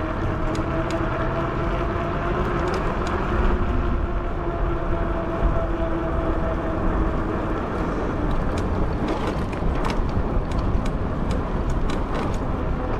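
Riding noise from a fat-tire e-bike: wind rushing over the microphone, with a steady hum from the bike that fades out a little past halfway, and scattered light clicks and rattles.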